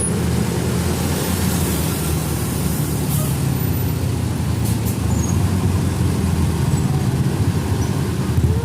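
Large bus diesel engine running close by with a steady low rumble, with short hisses of air from its air brakes about three seconds in and again near five seconds.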